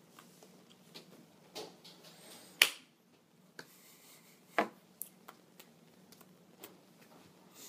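Hand sounds from signing: one sharp smack of the hands about two and a half seconds in, the loudest sound, and a smaller one about two seconds later, with light taps and rustles between.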